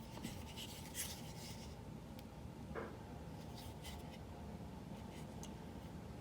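Faint rubbing and a few light clicks from a large folding knife, a Cold Steel Luzon, being handled, over a low steady room hum.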